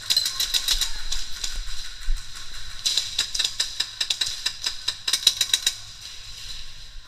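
Airsoft guns firing in rapid bursts of sharp clicking shots: one dense run near the start and another from about three seconds in, thinning out near the end.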